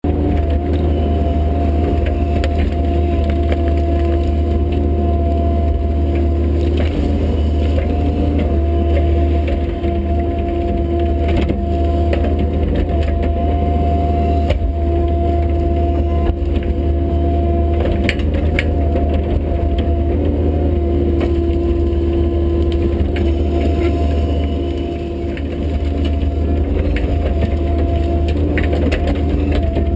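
Bobcat E50 mini excavator's diesel engine running steadily under load, with a steady whine over the low rumble, and wood cracking and splintering at intervals as trees and brush are pushed over.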